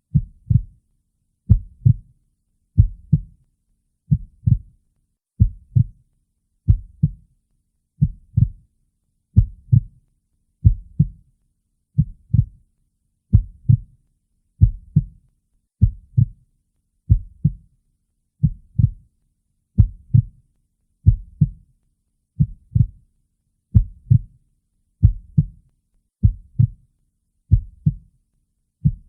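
Heartbeat beating slowly and steadily, each beat a double thump (lub-dub) about every 1.3 seconds, with silence between beats.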